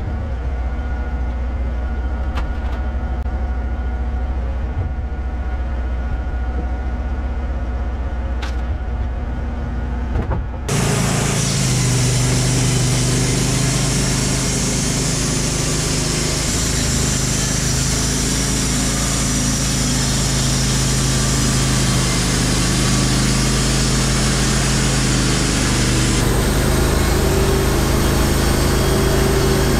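Wood-Mizer LT15 Wide band sawmill's gas engine running steadily at idle, then, about ten seconds in, suddenly louder and fuller with the band blade turning and sawing along a hemlock log.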